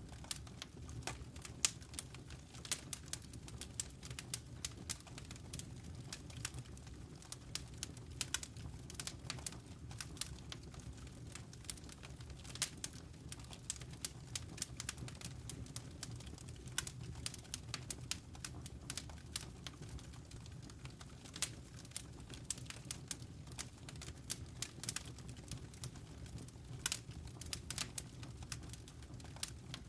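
Wood fire burning in a fireplace: irregular sharp crackles and pops, several a second, over a steady low rumble of the flames.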